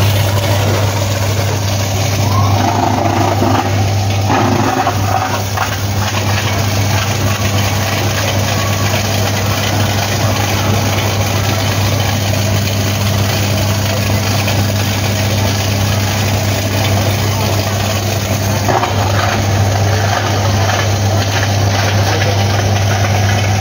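Steady low electrical hum from a plastic bottle recycling machine with a built-in shredder, running unchanged throughout, with faint voices in the background.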